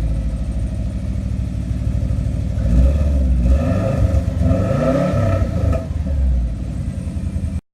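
Subaru Legacy GT's turbocharged 2.5-litre flat-four running through a newly fitted aftermarket catback exhaust, idling and then revved several times in the middle before the sound cuts off abruptly near the end.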